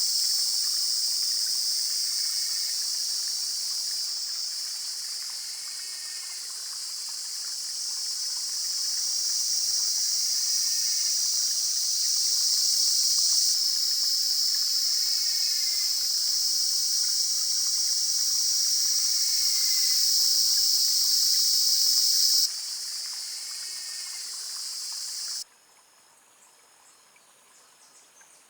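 A dense chorus of insects making a steady, high-pitched drone, with a faint short call repeating about every four seconds. The drone cuts off suddenly a few seconds before the end, leaving near quiet.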